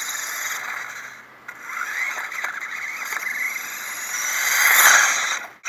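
Lego RC rally car's electric RC motor and geared four-wheel-drive drivetrain whining as the car drives over asphalt, with a high steady whine over a rushing noise. It grows louder from about four seconds in, peaks near five seconds as the car comes close, then cuts off abruptly.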